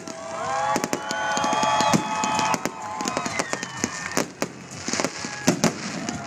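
Fireworks display: a rapid string of bangs and crackling bursts throughout, with several held, slightly rising tones swelling over the first three seconds.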